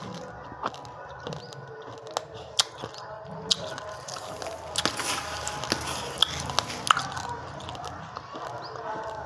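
Uncooked rice grains being bitten and chewed in the mouth: irregular sharp crunches scattered through, over faint background music.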